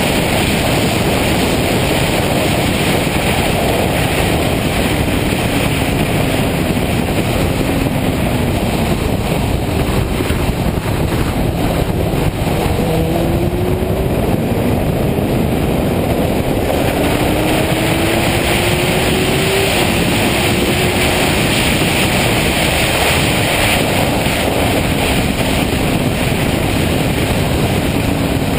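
Suzuki GSX-R inline-four sportbike at track speed, its engine heard under a heavy, steady rush of wind and road noise. The engine pitch rises and falls with throttle and gears. It climbs steadily through the middle, drops suddenly about two-thirds of the way in as a gear changes, then eases back.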